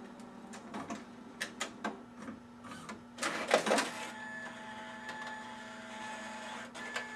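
Lexmark Pinnacle Pro 901 all-in-one printer's automatic document feeder starting a feed: a series of mechanical clicks and knocks, then a louder clatter about three and a half seconds in, then a steady motor whine as the rollers draw the sheet in. The feeder is failing to feed properly, and the sheet stalls about two-thirds of the way in because of a broken ADF hinge.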